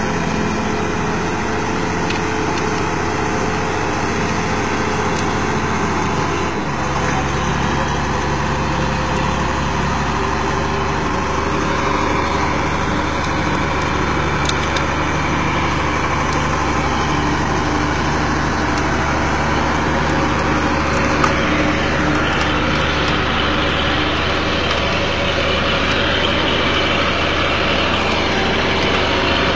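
Truck engine running steadily while the truck is stuck in deep mud, with a change in its note about seven seconds in.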